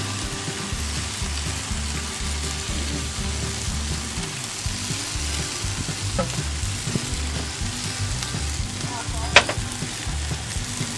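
BBQ-sauced chicken leg quarters sizzling on a hot grill as sauce is squeezed and brushed onto them, with one sharp click about nine seconds in.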